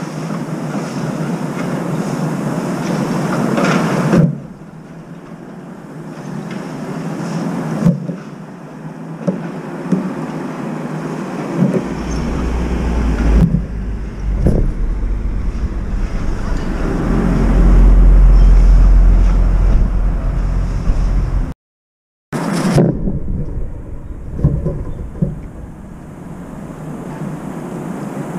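Outdoor city background noise with traffic from the street below. A deep low noise swells for about ten seconds in the middle, a few sharp taps are scattered through, and the sound cuts out for a moment about three quarters of the way in.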